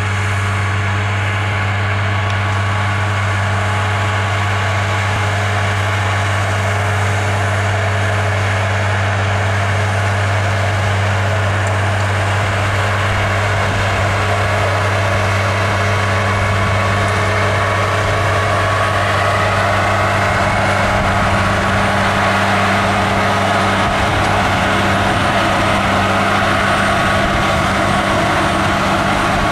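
Tractor engine running steadily under load as it pulls a trailed row-crop sprayer through the field, growing louder over the last ten seconds or so as it approaches.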